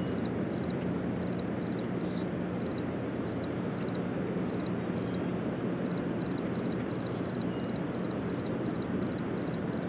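Open-air ambience: a steady rumbling wash of wind-like noise with a low steady hum under it, and a small creature's short high chirp repeating evenly about three times a second.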